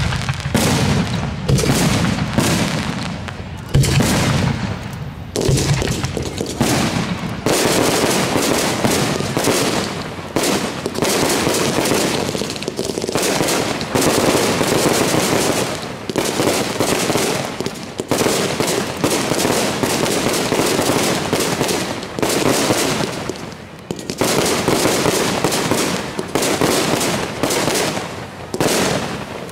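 Aerial fireworks display: sharp booms of shells bursting one after another, then from about seven seconds in a dense, nearly continuous barrage of bursts that thins briefly about five seconds before the end and picks up again.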